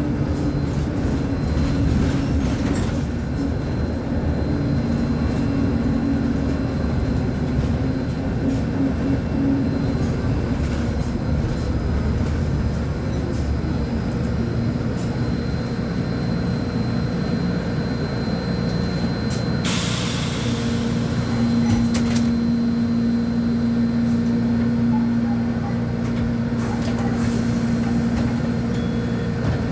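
Volvo B10M articulated bus's six-cylinder diesel engine running with a steady low rumble, its tone dropping a little early on and holding steady later. There are two short hisses of air, about two-thirds in and near the end.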